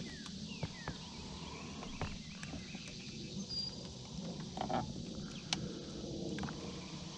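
Outdoor lakeside ambience: a few short falling bird chirps and scattered sharp clicks over a low steady hum.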